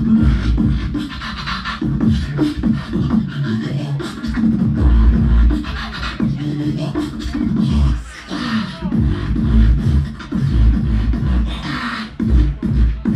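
Solo human beatboxing amplified through a handheld microphone and PA: rhythmic deep bass kicks under a hummed bass line, with sharper high percussive sounds layered on top.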